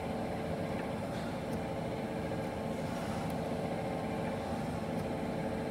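CC universal cylindrical grinder running with its hydraulics and wheel head under power: a steady mechanical hum made of several steady tones, with a few faint light ticks.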